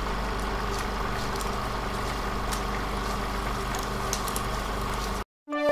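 Vintage-TV style sound effect: a steady electrical hum under hiss, with a few faint crackles, which cuts off suddenly near the end.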